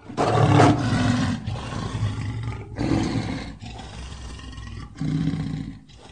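Lion roar sound effect: three rough roars a couple of seconds apart, each starting loud and trailing off, the first the loudest.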